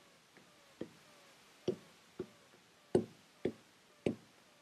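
Pen tip tapping on a touchscreen display while handwriting: about six short, sharp taps at uneven intervals of a half second to a second, each starting a new stroke.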